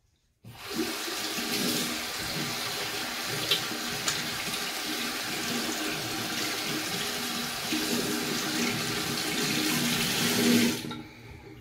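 Bathroom tap running water into a sink, splashing steadily, then turned off near the end.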